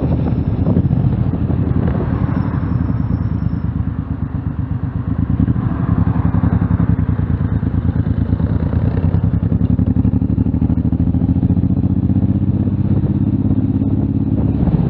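Motorcycle engine running under way, heard close up from the rider's own bike, a steady low pulsing. It goes quieter for about a second around four seconds in, then picks up again.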